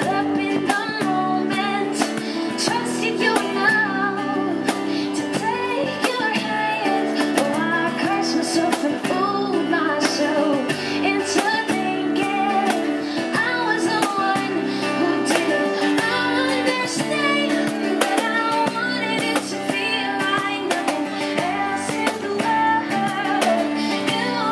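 A woman singing a song, accompanying herself on a strummed acoustic guitar.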